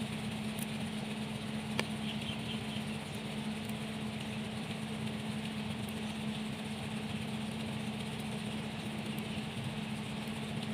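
Kubota tractor diesel engine idling steadily.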